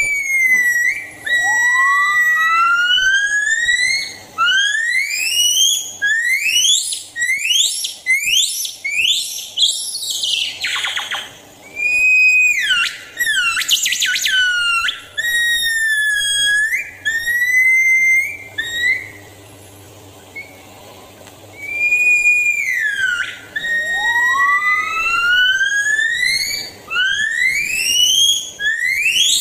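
Crested gibbons singing: long whistle-like notes that rise in pitch and come faster and faster toward a climax, broken by a couple of brief harsher bursts and short pauses. Near the end a new bout starts with another long rising note.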